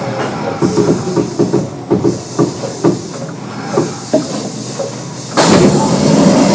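Kintetsu 9200 series commuter train standing at a station with its doors open: steady background with a run of irregular knocks and thuds, then a loud hiss that starts suddenly about five seconds in and carries on.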